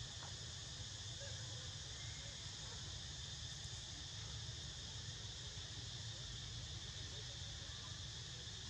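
Steady, unbroken high-pitched chorus of insects droning, over a low steady rumble.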